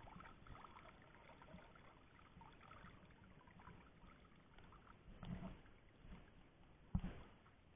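Mostly near silence: faint dripping and sloshing of shallow water as hands work a fishing net and pull fish from its mesh. A brief patch of splashing comes about five seconds in and a short knock comes near the end.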